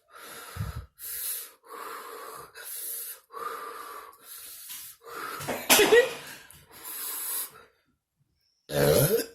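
A woman breathing hard and fast, a noisy breath about every three-quarters of a second, as she strains to hold back a burp after gulping soda. About six seconds in comes a louder gasp with a rising pitch, and another loud voiced sound near the end.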